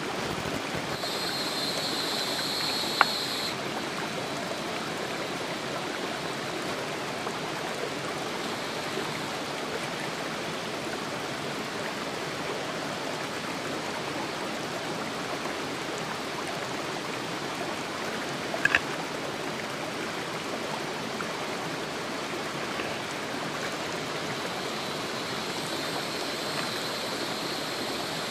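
Small clear forest stream running steadily over rocks. A high buzz joins it briefly about a second in and again near the end, and two short clicks sound, one about 3 seconds in and one past the middle.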